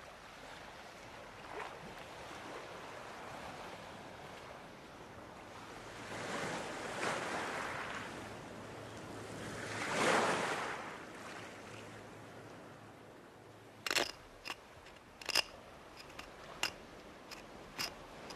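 Waves washing onto a stony shore, swelling twice, the louder wash about ten seconds in. Near the end come about six short, sharp knocks.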